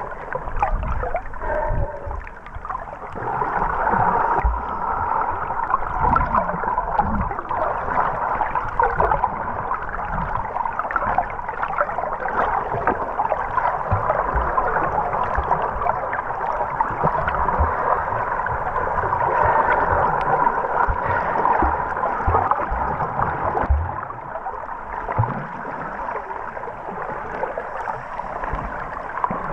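Muffled underwater sound picked up by an action camera in its waterproof housing: a steady rushing hiss of moving water, with scattered low knocks and bumps.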